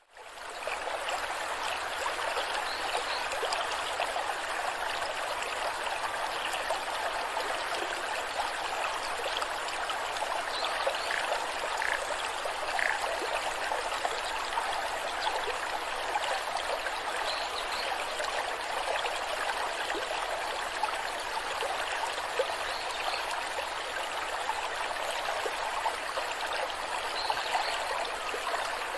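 Waterfall rushing and splashing steadily, a continuous even hiss of falling water that fades back in right at the start.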